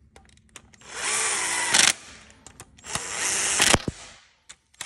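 Cordless power tool on an extension, snugging down a timing-chain tensioner bolt in two bursts of about a second each. Each burst spins up in pitch and then runs steady.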